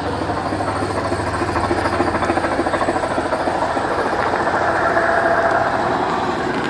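Train rolling along its track with a steady, rapid clatter of wheels on rail.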